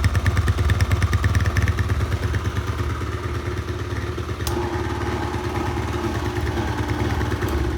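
Honda Magna 50's 49 cc four-stroke single-cylinder engine idling through its stock exhaust, with rapid even firing pulses. About halfway through there is a sharp click and the engine's note changes.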